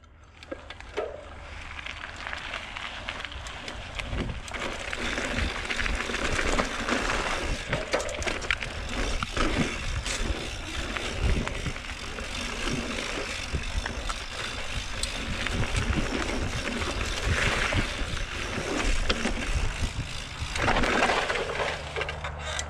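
Mountain bike being ridden along dirt singletrack: tyres on the trail with irregular rattles and knocks from the bike, fading in over the first few seconds.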